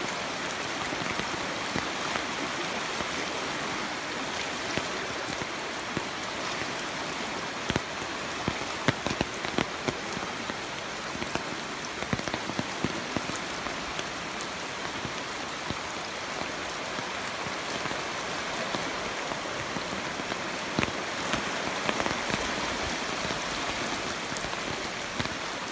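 Rain falling steadily, an even hiss with many scattered sharp taps of drops landing close by.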